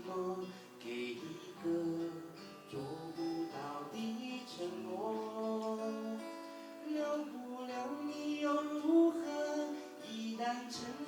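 A voice singing a melody to strummed acoustic guitar.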